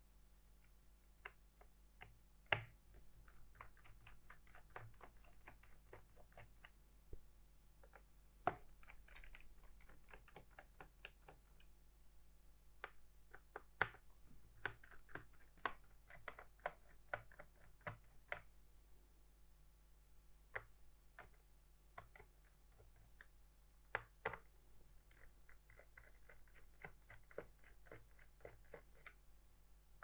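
Small screwdriver loosening the screws on a laptop's plastic base: faint, scattered clicks and taps of the driver and hands on the case, a few of them sharp, with stretches of light scratchy ticking as the screws are turned.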